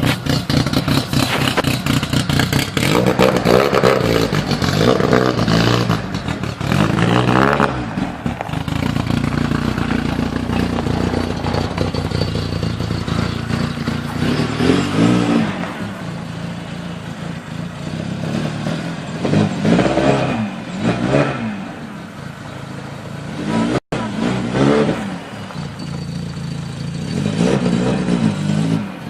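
VW Golf Mk2 engine idling and being revved in repeated throttle blips, the revs rising and falling back each time. There is a brief break about three quarters of the way through.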